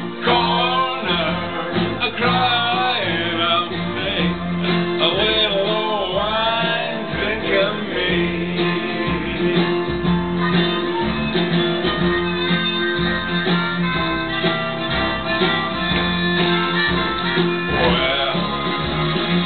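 A man singing into a handheld microphone over a country backing track with guitar. His voice is heard through roughly the first third and again near the end; in between, the backing music carries on mostly on its own.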